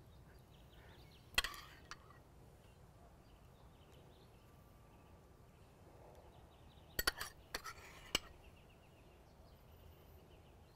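A metal spoon clinking and scraping against a small ceramic ramekin while sauce is scooped out and spread on buns: one clink about a second and a half in, then a quick run of several clinks around seven to eight seconds.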